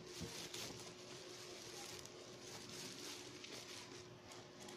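Bubble wrap rustling and crinkling softly as it is handled and the radio is slid out of it.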